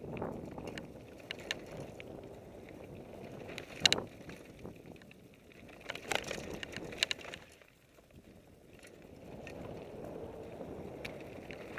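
Mountain bike rolling fast down a dirt singletrack: steady rushing noise from the tyres and riding, with sharp rattling clacks from the bike over bumps, the loudest about four seconds in and more around six and seven seconds. The rushing drops away briefly near eight seconds.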